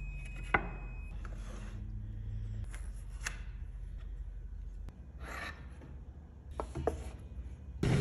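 Wooden blocks and a wooden template being handled and set down on a wooden board: a few light wood-on-wood knocks, about half a second in, about three seconds in and twice near the end, with brief rubbing and sliding between them.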